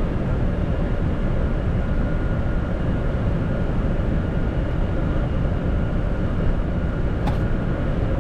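Steady rushing cockpit noise of a Boeing 747-400 flight deck on approach: airflow and engine noise with a faint steady hum, and a single short click about seven seconds in.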